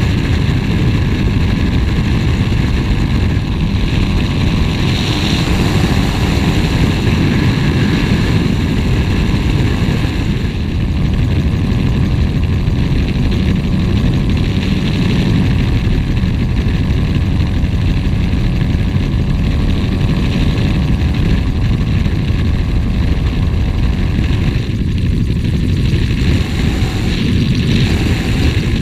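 Gyrocopter in flight: its engine and pusher propeller running steadily, loud, with rushing air, heard from a camera mounted on the aircraft. The engine's hum of closely spaced tones shifts slightly about ten seconds in.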